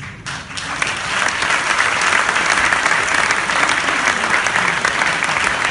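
Audience applause that starts a moment in, swells over the first second and then holds steady and loud.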